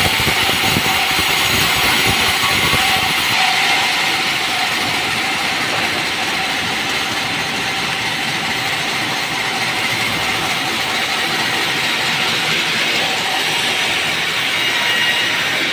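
Sawmill band saw running steadily as it cuts merbau hardwood. A deeper rumble under it drops away about three seconds in.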